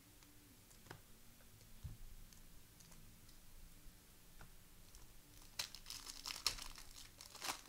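A foil trading-card pack wrapper is torn open and crinkled in the hands, a dense crackling burst lasting about two seconds near the end, after a few faint clicks of cards being handled.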